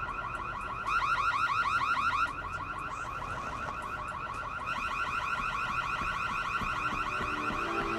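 Electronic alarm sounding: a fast, evenly repeated rising whoop, about eight sweeps a second, louder for over a second near the start.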